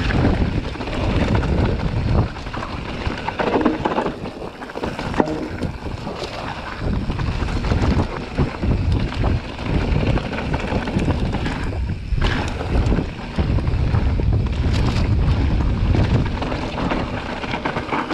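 Transition Sentinel mountain bike riding fast down a dirt forest trail: tyres rumbling over the ground and the bike rattling and knocking over bumps, with wind rushing on the microphone. A sharp knock about five seconds in, and a brief lull around twelve seconds.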